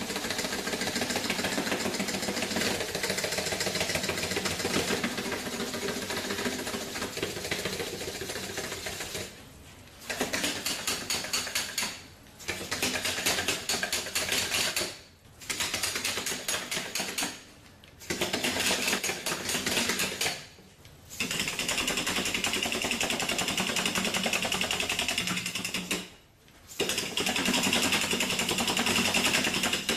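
Robotis Bioloid GP humanoid robot walking: its Dynamixel AX-18A servos whirring and its feet clattering rapidly on the floor. The sound breaks off briefly several times between gait sequences.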